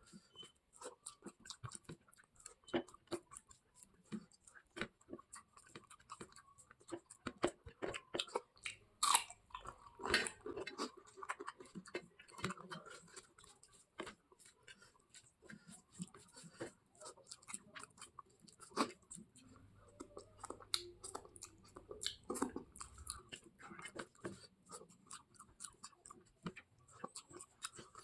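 A person chewing food close to the microphone, with irregular mouth clicks and some crunching.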